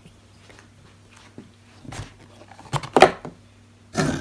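Handling noises while unpacking: a few short knocks and rustles, the loudest about three seconds in, over a steady low hum.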